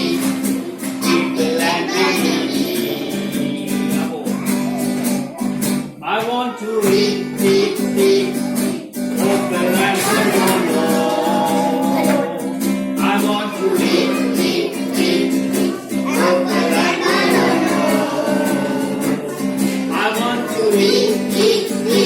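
A song: a voice singing over steady instrumental backing.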